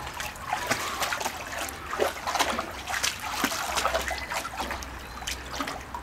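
Husky wading through shallow water in a paddling pool, her paws splashing and sloshing in quick, irregular steps.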